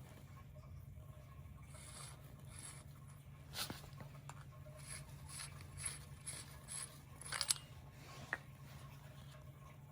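Hand tools working on metal bicycle drive parts: a run of short scraping, ratcheting strokes about half a second apart, with a few sharper metallic clicks.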